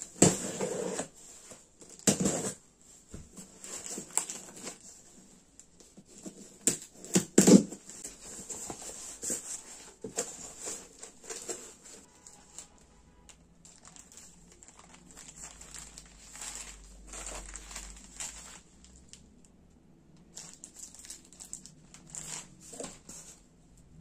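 A cardboard box being unpacked by hand: packing tape slit and torn open, cardboard flaps scraped and folded back, then plastic-wrapped items rustled inside. The loudest tearing strokes come at the start, around two seconds in and around seven seconds in, followed by softer, scattered rustling.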